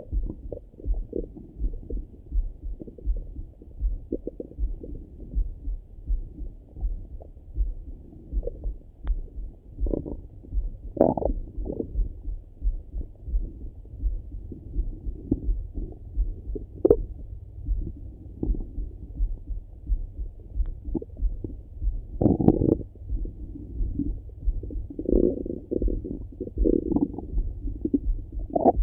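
Stomach gurgling and rumbling heard through a Littmann stethoscope on the belly: irregular bursts of gurgles, the longest about two-thirds of the way through and a cluster more near the end, over a steady low pulsing.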